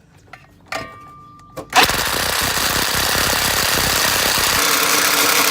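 Impact wrench kicking in about two seconds in and hammering steadily on a stuck fastener, trying to break it loose. A couple of light clicks come before it.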